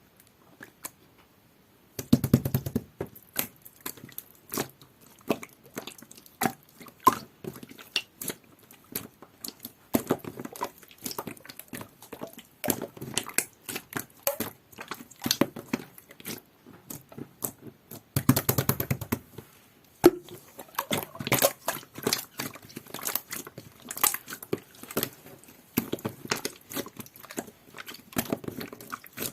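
Jelly-textured clear slime being squeezed and pressed by hand: a dense run of sticky clicks and crackles, with heavier squelches about two seconds in and again around eighteen seconds.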